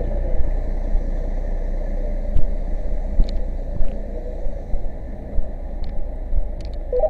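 Fire engine's motor running steadily with a low hum, with scattered knocks and clatter of equipment, the sharpest a few seconds in.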